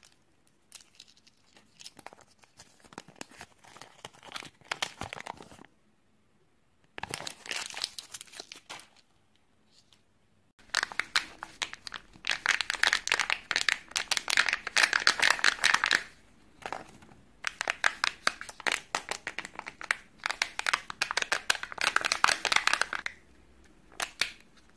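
Foil and plastic Kinder Joy egg wrappers being handled and peeled open: crinkling and tearing in dense crackly bouts with short pauses between them.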